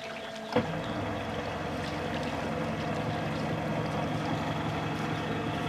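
Two-stroke engine of a Kawasaki stand-up Jet Ski catching with a sudden start about half a second in, then running steadily at idle on the water.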